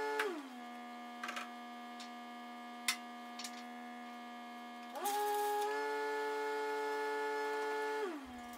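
Background music: a sustained note gliding down in pitch just after the start, back up about five seconds in, and down again near the end, with a few faint clicks.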